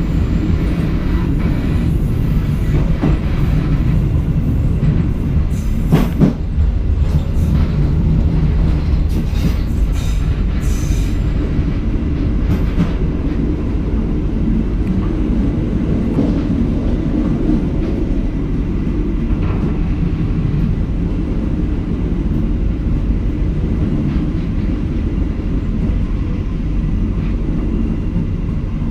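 Passenger train in motion, heard from the rear of the last coach: a steady low rumble of wheels on the rails, with a sharp knock about six seconds in and a few lighter clicks soon after.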